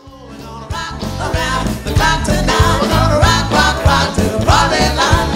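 Live band playing a rock-and-roll number with a lead vocalist over drums and bass, fading in from silence over the first couple of seconds.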